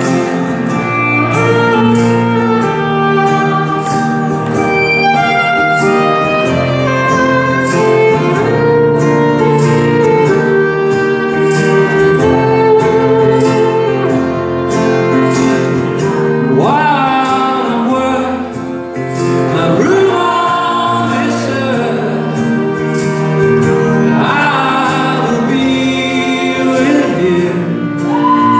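Live band music with a violin playing along, in a hall, as a pop band performs a slow song.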